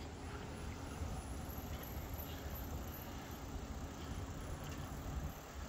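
Steady low rumble of wind and tyre noise on the microphone while riding an electric bike.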